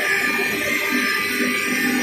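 Background music with a plucked guitar, over a steady high whine from the spindles of a multi-spindle CNC wood router carving.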